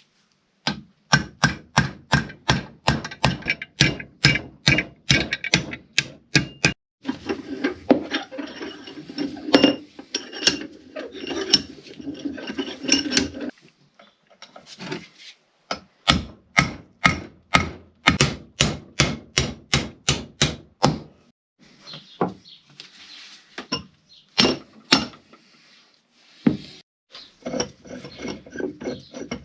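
Hammer blows in quick even runs of about two or three a second, taking apart a York bench vise, broken by stretches of scraping or rubbing.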